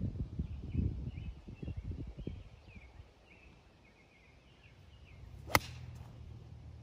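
A single sharp crack of a golf club striking a ball, about five and a half seconds in, is the loudest sound. Birds chirp faintly through the middle, and a low rumble comes at the start.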